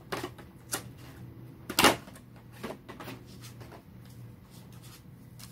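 Handling of a cardboard trading-card box: a few knocks and clicks, the loudest about two seconds in, over a faint steady hum.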